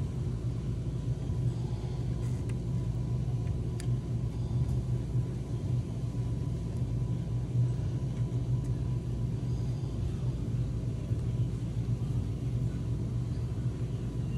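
Steady low mechanical hum, like a motor running, unchanged throughout, with a few faint ticks over it.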